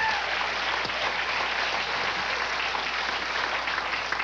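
Studio audience applauding steadily, the clapping easing off a little near the end.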